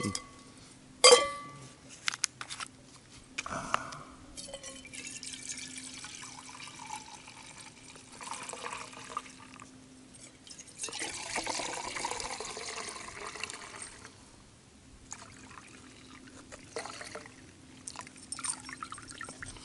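Red wine poured from a collapsible Platypus bag into stainless steel camp cups, splashing and trickling in spells as the bag is squeezed. A sharp metallic clink with a short ring about a second in.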